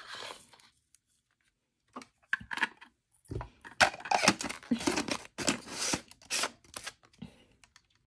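Hard plastic lightstick parts scraping and clicking as the clear globe and diamond insert are twisted onto the base, in uneven bursts that grow louder about three seconds in.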